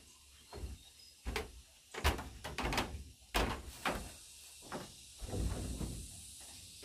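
A run of irregular knocks and thuds, several close together in the middle, like wooden or hard objects being handled and bumped.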